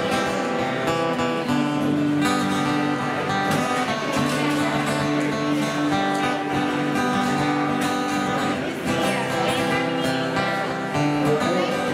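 Acoustic guitar strummed, playing a tune with held chords that change every second or two.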